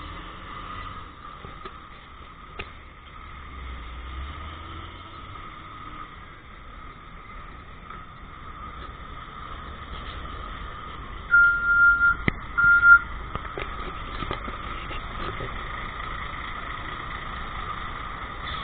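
Truck engines running with a low rumble. About eleven seconds in, an electronic beeper sounds two loud, high, steady beeps, the first about twice as long as the second.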